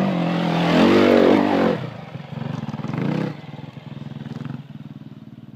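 Off-road dirt bike engines revving as the bikes ride past close by on a dirt trail. The loudest pass comes about a second in, with the engine note rising and falling. A second, shorter swell follows near three seconds, and then a quieter, steadier engine note.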